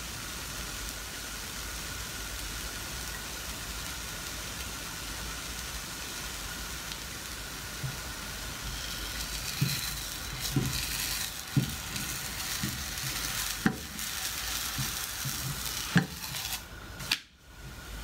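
Thin paratha batter sizzling steadily in an oiled non-stick frying pan. From about halfway, a silicone spatula knocks and scrapes against the pan a number of times as it loosens the edge of the bread before turning it.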